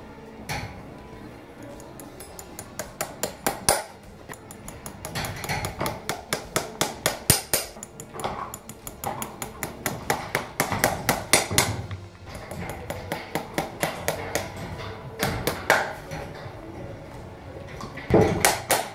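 Farrier's driving hammer striking horseshoe nails into a pony's hoof, in several runs of quick metallic taps with short pauses between them.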